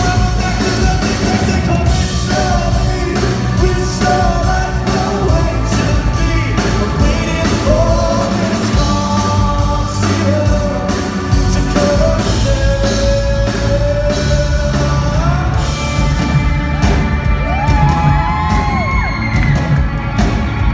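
A male singer singing a rock song over a live band in a concert hall, holding long notes in the middle of the passage.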